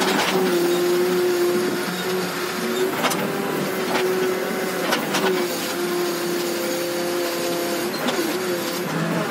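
Case 580 Super R backhoe loader's diesel engine running under hydraulic load as the backhoe digs, with a steady whine that sags in pitch twice. Several sharp knocks come from the bucket working against soil and stones.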